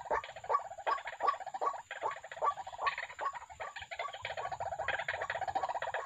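White-breasted waterhens calling: a fast, regular run of short repeated notes, about two to three a second, with more calls overlapping them from about three seconds in.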